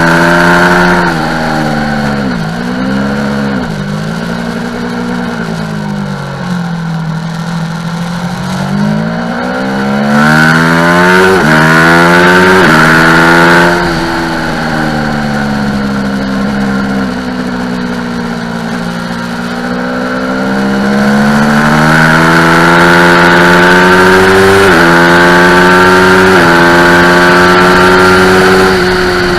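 Aprilia Tuono motorcycle engine at full track pace: revs rise hard and drop sharply at each upshift, then fall away under braking between runs. Heavy wind noise builds at top speed.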